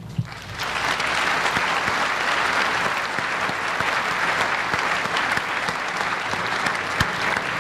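Audience applauding in a hall, the clapping building up about half a second in and then holding steady.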